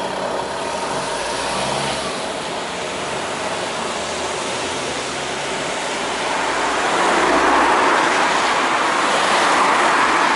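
Road traffic passing a pedestrian crossing: steady tyre and engine noise, growing louder about two-thirds of the way in as vehicles pass close by.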